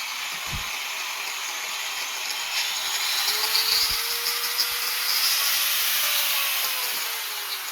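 A 900 W electric cutting machine running with a steady, hissing high-pitched noise. About halfway in, a faint tone slowly rises and then falls as the motor speed shifts.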